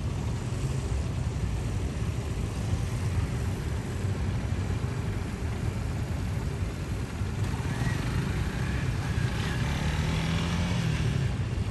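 Small cruiser motorcycles running at low speed some distance away, heard over a steady low rumble. Near the end, one engine's note rises briefly and falls back.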